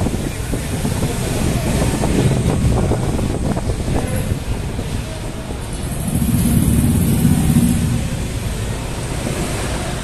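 Low rumbling ride noise as a Polytron Fox R electric motorcycle rolls slowly, mostly wind and road noise with no engine note, swelling louder about six to eight seconds in.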